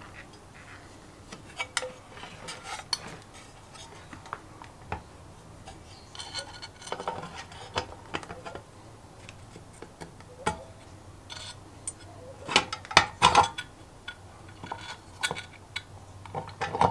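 Small clicks, taps and light metallic clinks as wires with crimped spade connectors are handled and fitted to the thermostat terminals inside a sandwich toaster's base. Irregular, with a louder cluster of clicks about two-thirds of the way through.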